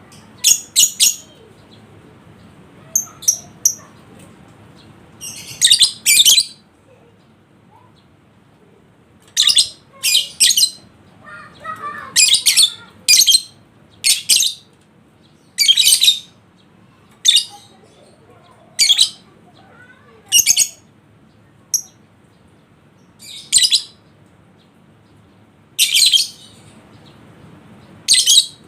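Lovebird in breeding condition giving short, shrill chattering bursts, one every second or two, each lasting under a second.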